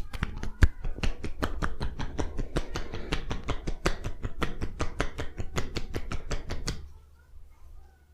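Rapid hand-percussion massage strokes: hands chopping or tapping on the body at about five even slaps a second, stopping about seven seconds in.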